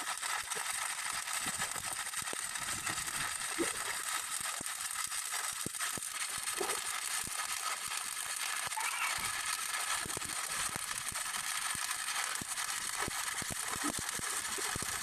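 Welding on a cracked axle housing: a steady hiss with scattered crackles and pops.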